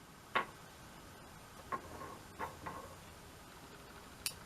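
A few faint, irregular clicks and light taps from fly-tying tools and materials being handled at the vise.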